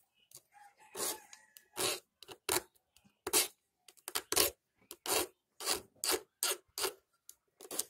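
Flat file rasping in short strokes across the tops of a chainsaw chain's cutter teeth, about a dozen strokes that come faster near the end: taking down the top edges of the cutters that snag.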